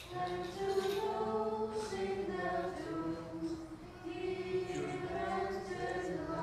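Byzantine-rite liturgical chant sung a cappella by several voices, holding long notes that move in slow steps.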